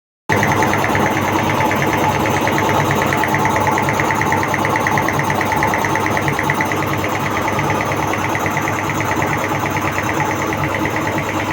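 Electric air compressor running steadily, its pump making a fast, even pulsing chatter. It starts abruptly just after the beginning.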